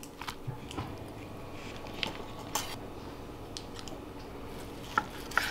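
Scattered light clinks and knocks of a knife and fork against a plate and a wooden cutting board, as a grilled ribeye steak is set down on the board and cut.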